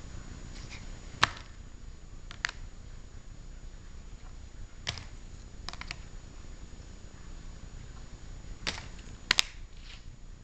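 Hard plastic trading-card holders clicking and tapping as they are handled and swapped: about six sharp, irregular clicks, two in quick succession near the end, over a steady low background hiss.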